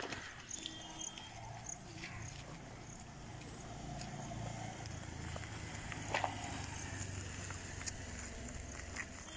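A wheelbarrow loaded with soil being pushed over rough dirt ground: a low rolling rumble that grows from about three seconds in, with a few sharp knocks around the middle.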